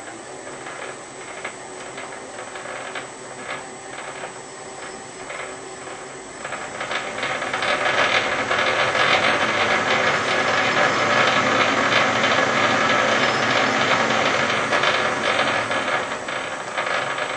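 Boxford lathe's change-wheel gear train, including the 127/100-tooth metric conversion gear, running with the guard open, the gears meshing with a steady rattle that grows louder about seven seconds in. It is quite noisy, which is normal for these lathes.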